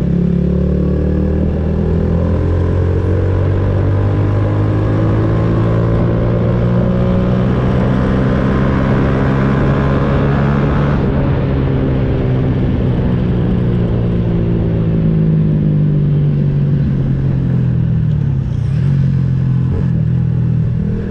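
Small motorcycle engine running while the bike is ridden, heard from the rider's position. Its pitch climbs slowly over the first half as the bike gathers speed, then eases down, and picks up again near the end.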